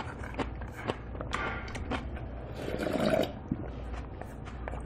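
Close-up eating sounds: a metal spoon clicking and scraping irregularly against a black earthenware bowl held at the mouth, with slurping and chewing of rice soaked in galbitang broth. A longer, louder stretch of slurping comes about three seconds in.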